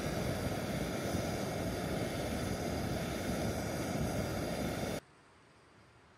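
A loud, steady rushing noise that starts suddenly and cuts off abruptly about five seconds in.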